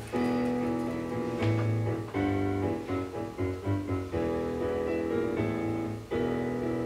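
Instrumental background music, with a run of quicker notes in the middle.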